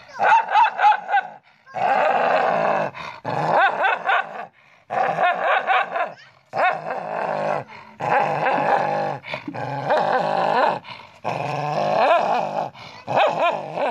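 A dog growling and snarling with barks in a string of about nine angry bouts, each a second or so long with short pauses between. It is an aggressive display at its own reflection in a mirror, which it takes for another dog.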